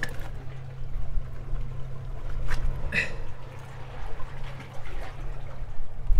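Seawater trickling and sloshing among jetty rocks, under a low rumble of wind on the microphone. A short sharp click with a brief squeak about three seconds in.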